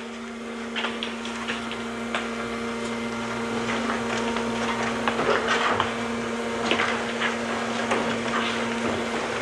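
A steady machine hum with a low held tone over a hiss, with small scattered clicks.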